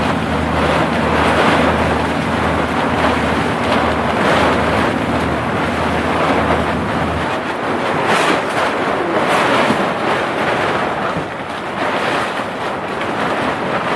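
Storm wind buffeting the microphone, with rain and a tarpaulin canopy flapping hard in the gusts. A low engine hum, the houseboat's motor, runs underneath and drops out about seven seconds in.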